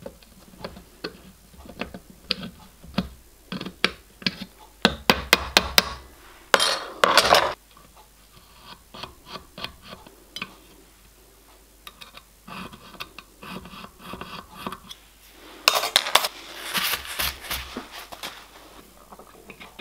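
Small steel parts and hand tools clinking and tapping against a steel bench vise: many light, sharp metal clicks, with two longer, harsher spells, one about six and a half seconds in and one from about sixteen seconds.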